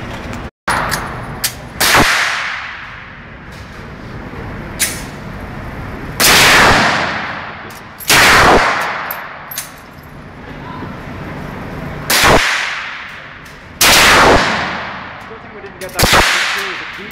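Handgun shots in an indoor range: six loud reports, irregularly spaced one to four seconds apart, each ringing on in a long echo off the walls. Lighter clicks and knocks sound between them.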